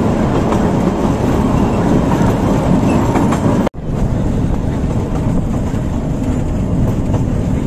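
Open passenger car of a 600 mm narrow-gauge forest railway rolling along: a steady, loud rumble and rattle of wheels on the rails. The sound cuts out for an instant a little under four seconds in, then the same running noise carries on.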